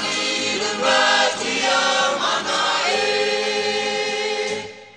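Background music with a choir singing long held notes, fading out at the end.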